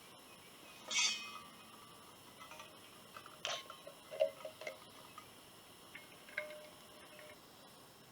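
Quiet woodland ambience with a short, high bird call about a second in, then a few faint clicks and brief chirps.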